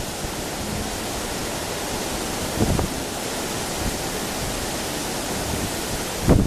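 Wind blowing steadily, a constant rushing hiss, with a brief low rumble of wind buffeting the microphone about two and a half seconds in.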